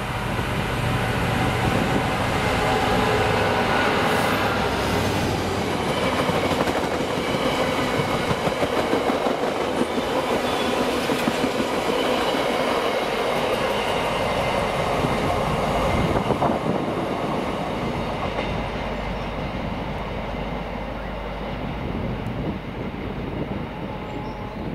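Freightliner Class 66 diesel locomotive, with its two-stroke V12 engine, passing at speed with a train of box wagons. The low engine drone comes first, then the wagons' wheels run and clatter on the track, fading as the train draws away.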